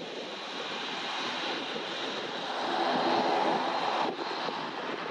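Airbus A320neo's Pratt & Whitney PW1100G geared turbofans running at low power as the jet turns onto the runway, growing louder about three seconds in, with wind rushing on the microphone.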